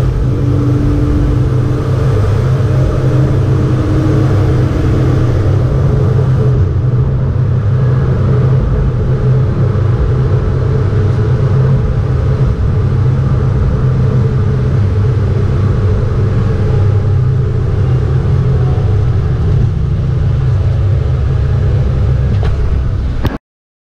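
BMW 325 E36 race car's straight-six engine running steadily at speed, heard from inside the cabin as a loud, even low drone mixed with road and wind noise. It cuts off abruptly near the end.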